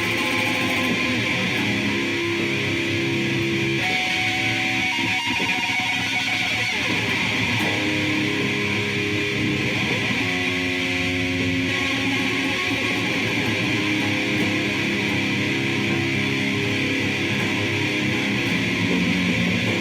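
Sludge-style noise music: distorted electric guitar holding slow, sustained chords that shift every few seconds under a steady wash of hiss, at an even, loud level.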